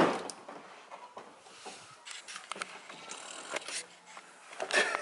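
A sharp knock at the start, then faint scattered clicks and rustling as hands work at the plastic underbody cover and its fasteners.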